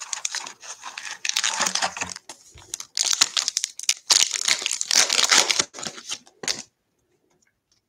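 Plastic wrapper of a 2020 Bowman baseball card pack crinkling as it is pulled from the box and torn open, stopping suddenly near the end.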